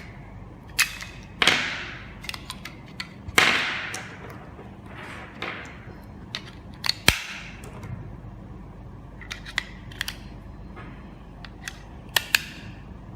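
Irregular sharp clicks and knocks of hands opening a small plastic battery compartment and taking out the AAA batteries, two of them trailing off in a short rattle.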